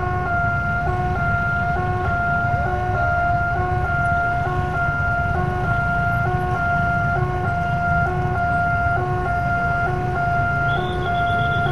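Railway level-crossing warning alarm sounding: a repeating electronic two-tone chime, warning that a train is coming as the barriers close. It plays over the low running noise of many motorcycle engines. Near the end a higher, rapid pulsing tone joins in.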